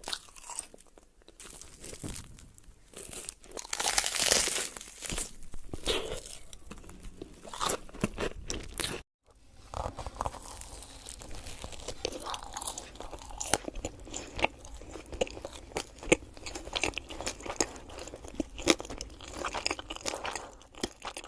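Close-miked crunching, biting and chewing of crisp food, in irregular bites and chews. About nine seconds in there is a brief dropout, and a new eating recording follows.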